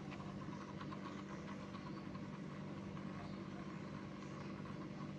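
Small electric motor of a rotating display turntable, running with a steady low hum as it slowly turns.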